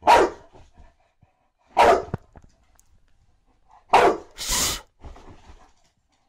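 Boxer dog giving play barks, three short single barks about two seconds apart, with a short hiss-like burst right after the third.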